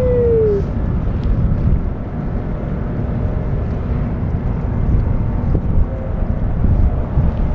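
Wind buffeting the microphone in a steady low rumble. In the first half second, a cat's drawn-out meow trails off, falling in pitch.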